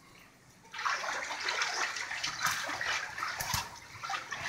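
Shallow floodwater splashing and sloshing around wading feet, starting about a second in and continuing as an irregular watery wash.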